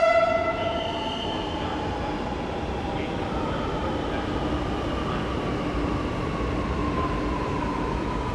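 Lucknow Metro train arriving at an elevated platform. The tail of its horn fades out at the very start, then comes a steady rolling rumble with a motor whine that slowly falls in pitch as the train slows.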